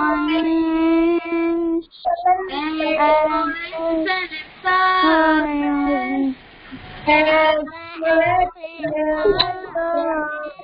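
A woman and children singing a slow devotional rhyme together, with long held notes.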